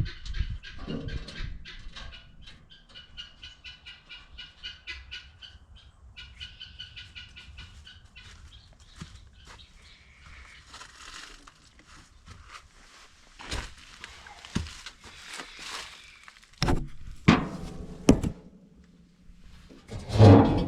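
Birds calling in a rapid run of high, pitched notes for several seconds, followed by a few sharp knocks, the loudest near the end.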